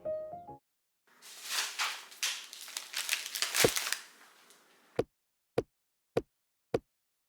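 Crinkling and rustling with one low thump in the middle. About five seconds in, a drum-machine beat starts: short, low kick-like thuds repeating evenly, a little under two a second.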